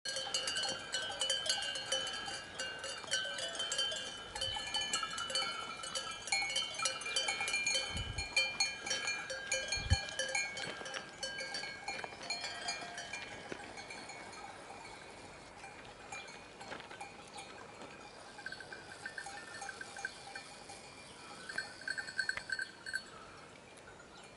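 Many goat bells clanking and ringing at once from a grazing herd of goats, loud at first and fading away through the second half.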